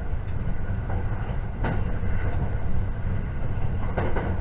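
Running noise inside a JR 681 series limited express electric train at speed: a steady low rumble from the wheels on the rails. Two sharp clicks stand out, about two seconds apart.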